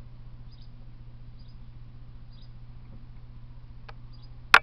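A steady low electrical hum with faint high squeaky chirps about once a second, then a small click and, just before the end, a much louder sharp click.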